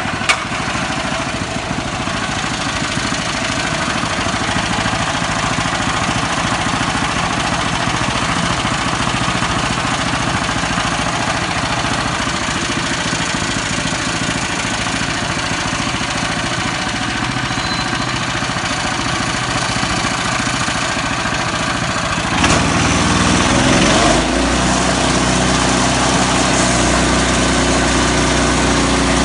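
Horizontal band sawmill running with a steady mechanical din. There is a sharp click right at the start. About 22 seconds in it grows slightly louder, and a deeper steady hum with several held tones comes in.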